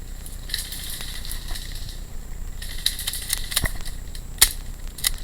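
Rustling and crunching from a player moving through brush, in two stretches, with a few sharp clicks; the loudest click comes about four and a half seconds in.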